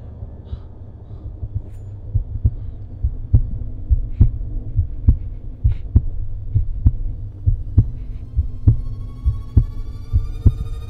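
A heartbeat sound effect in the soundtrack: deep double thumps about once a second, building suspense, with rising pitched tones sliding upward from about three quarters of the way in.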